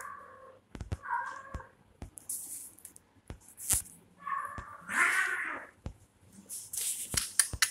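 Kittens meowing and yowling during a play-fight, about four short calls with the loudest about five seconds in, mixed with sharp scuffling knocks and short bursts of hiss-like noise.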